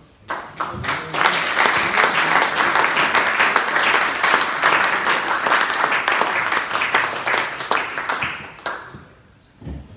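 A roomful of people applauding: clapping starts just after the beginning, swells within a second into a steady round of applause, and dies away near the end.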